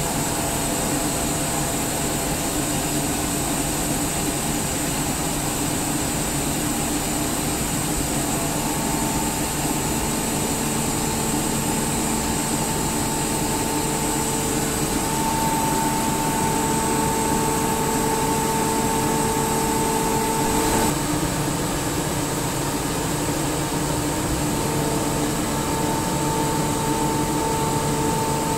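SCR enclosed rotary-screw air compressor running steadily: a constant machine noise and hiss with a high steady whine. A steady mid-pitched tone joins about nine seconds in, and there is a single short click about twenty-one seconds in, where the tone briefly drops out.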